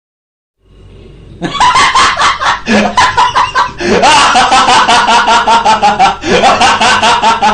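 Comic laugh sound effect: a fast, high-pitched cackling run of short 'ha' pulses, each run opening with a rising whoop and repeating about every two and a half seconds. It starts after a brief silence at the beginning.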